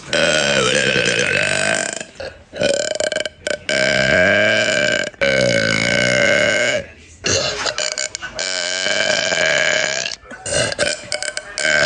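A woman belching loudly, a run of about four long, drawn-out burps of one to three seconds each, then several shorter ones near the end.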